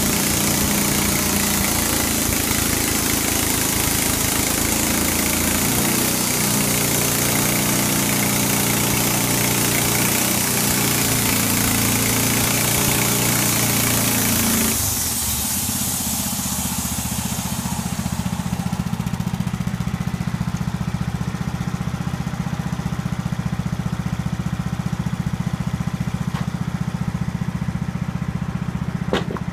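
Norwood portable band sawmill running, its blade cutting through a black walnut log with a dense hiss over the engine. About halfway through the hiss stops abruptly and the engine runs on steadily alone. A brief knock comes near the end.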